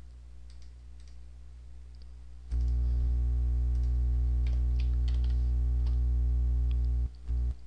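Faint computer keyboard and mouse clicks as a value is typed into a settings field. About two and a half seconds in, a loud steady low electrical hum starts under the clicks and cuts off suddenly near the end.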